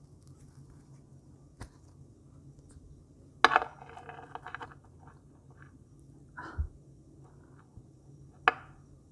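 Close handling sounds of a marshmallow being worked off a wooden skewer and set down on a table. There are a few sharp clicks and a duller knock. The loudest moment, about three and a half seconds in, is a sharp snap followed by a second of crackly rustling as it comes off the stick.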